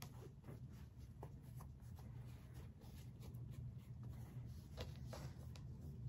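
Faint rustling and light ticks of cotton quilting squares being handled, placed right sides together and lined up on a cutting mat, over a low steady hum.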